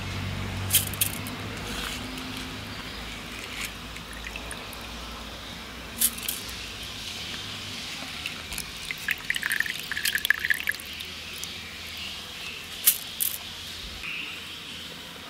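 Soaked raw rice being scooped by hand from a plastic bowl into a steel mixer-grinder jar: wet grains rustling and dropping onto the steel, with a few sharp clicks and a run of small ticks a little past the middle.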